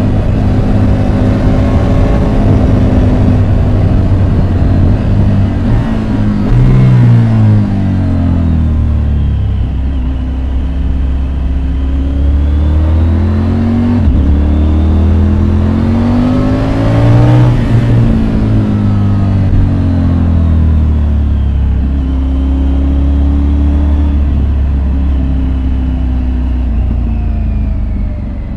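Triumph Tiger 850 Sport's inline three-cylinder engine heard from the rider's seat, its revs rising and falling again and again through gear changes, accelerating and slowing for bends. There are sharp climbs in revs about seven seconds in and again around the middle.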